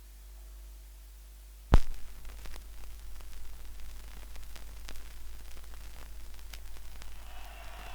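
Record surface noise between tracks: a faint hum, then one sharp loud click a little under two seconds in, followed by steady crackle and static with scattered small clicks.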